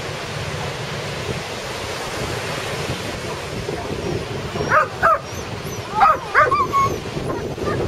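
Steady rush of breaking ocean surf; about halfway through, a dog breaks in with a run of short, high, wavering yelps and whines, the loudest sounds here.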